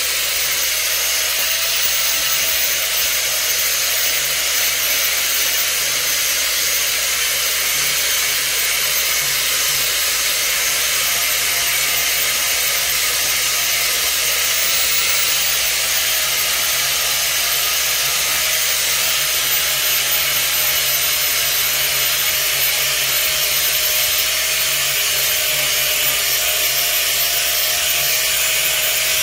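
Steady loud hiss, strongest in the upper range, with a faint wavering whine beneath it.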